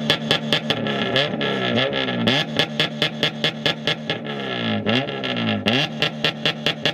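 Honda K20 four-cylinder engine from a DC5, fitted in a Civic EG3, revved up and down repeatedly about once a second, with sharp regular clicks about five a second over it.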